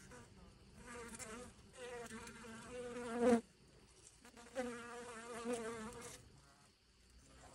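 Honeybees buzzing close by: a wavering wingbeat hum that swells to its loudest about three seconds in and cuts off, then returns about a second later for nearly two seconds.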